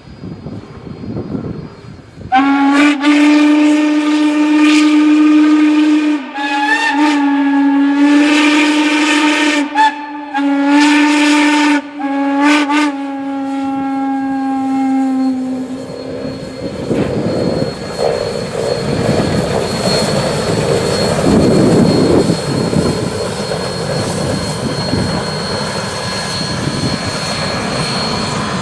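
Steam locomotive whistle blowing a series of long blasts with short breaks, starting about two seconds in and lasting some fourteen seconds, its pitch sagging slightly as it ends. A steady rushing noise follows to the end.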